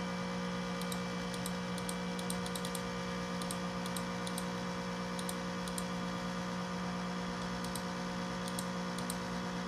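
Macintosh SE and its external 30 MB hard drive running with a loud, steady fan hum, which the owner believes is abnormal. Over it come irregular mouse-button clicks, often in quick bunches, as pixels are clicked in the desktop pattern editor.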